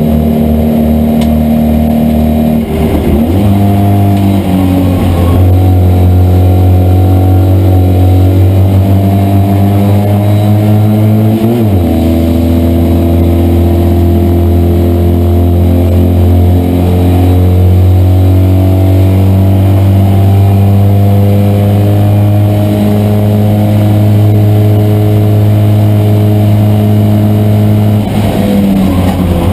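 Citroën 2CV race car's air-cooled flat-twin engine running hard, heard from inside the car. Its note shifts at gear changes, about 3 seconds in, again around 12 seconds in, and near the end.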